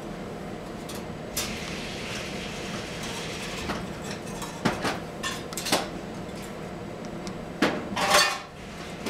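Steady hum of powered-on bench test equipment (a lock-in amplifier and a digital oscilloscope), with a handful of sharp clicks and knocks and a louder short scraping rustle near the end.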